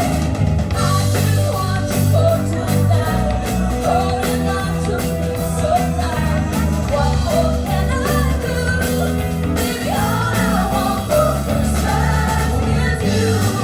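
Rock-style band music: a steady stepping bass line and guitar under a wavering lead vocal melody.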